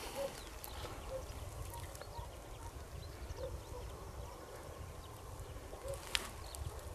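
Quiet field ambience: wind rumbling on the microphone, soft footsteps, and a few faint short tones scattered through it. A single sharp click about six seconds in is the loudest moment.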